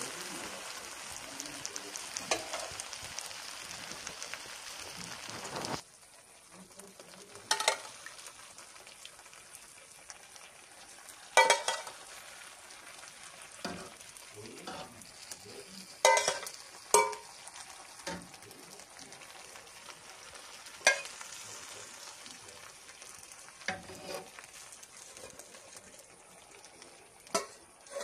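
Syrup-soaked baklava sizzling in its pan: a steady high fizz that cuts off suddenly about six seconds in, then a fainter fizz broken by scattered sharp clicks and crackles.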